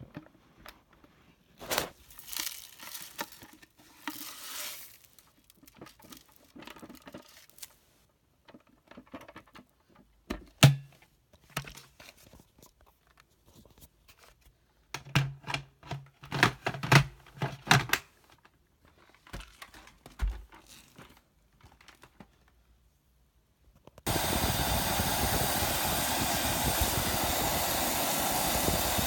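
Scattered clicks, knocks and rustling of plastic parts being handled, then a Shark vacuum's motor switches on about 24 seconds in and runs with a steady loud whoosh.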